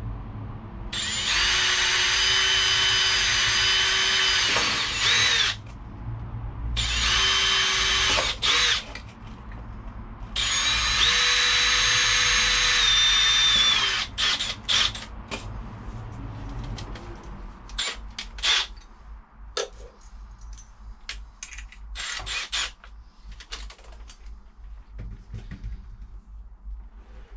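Power drill boring mounting holes, running in three bursts of a few seconds each with a steady motor whine. After that come scattered clicks and knocks of handling.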